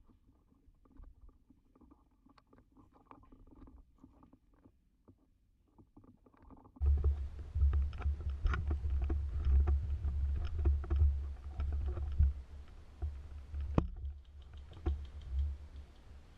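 Faint rustling, then about seven seconds in a sudden loud low rumble with crackling takes over the microphone, like a body-worn camera being buffeted as the wearer moves through the woods.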